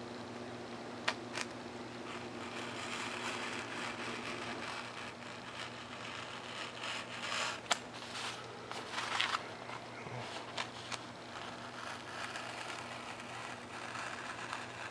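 Hobby knife blade drawn through a sheet of 3 mm Depron foam with a paper template taped on top: an uneven scratchy rasp of the cut with a few sharp clicks as the blade catches and the paper is handled.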